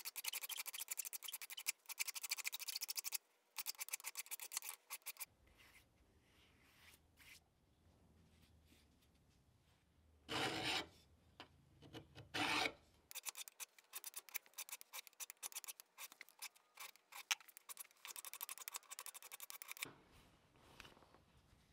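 Hand file rasping across the end of an iron pipe tee fitting held in a vise, in quick back-and-forth strokes. The filing stops for a stretch in the middle, broken by two short strokes, then picks up again.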